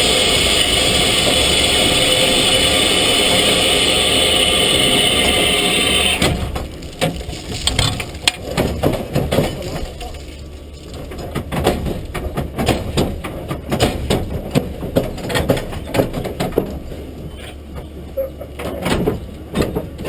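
Steam locomotive venting steam close by: a loud, steady hiss that cuts off suddenly about six seconds in, followed by irregular clicks and knocks over a low hum.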